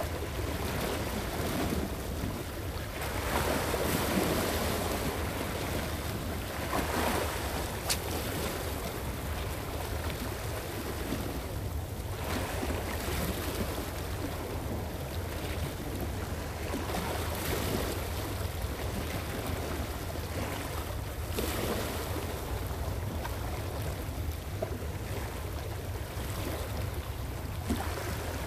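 Small sea waves washing against shoreline rocks, surging and receding every few seconds, over a steady low rumble of wind on the microphone.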